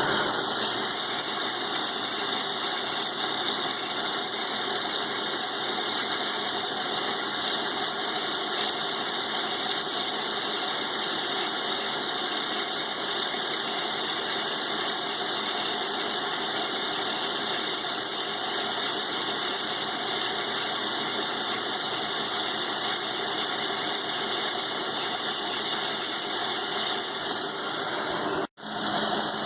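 Milling machine slowly cutting a thick steel blade blank with a roughing end mill, under a steady hiss of compressed air blowing on the cut. The sound cuts out for a split second near the end.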